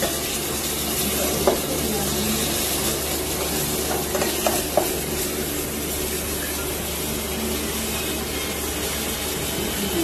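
Canned sardines in their sauce sizzling in a hot stainless steel pot while being stirred with a metal spoon, which clicks against the pot a few times.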